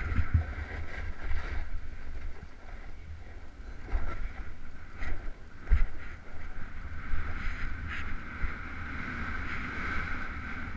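Snowboard sliding fast over packed, tracked snow: a steady hiss and scrape of the edges, with wind rumbling on the helmet camera's microphone. A few sharper scrapes over bumps stand out, the loudest about four and six seconds in.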